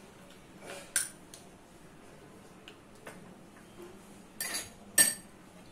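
Metal spoon clinking against a stainless-steel mixing bowl as ginger-garlic paste is spooned in. There is one clink about a second in, then a couple more near the end, the last the sharpest.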